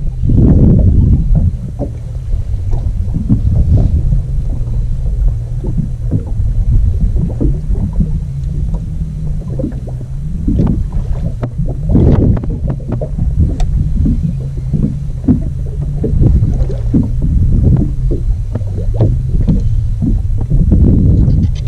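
Wind buffeting the microphone and water slapping against a small boat's hull in uneven surges, over a low steady hum.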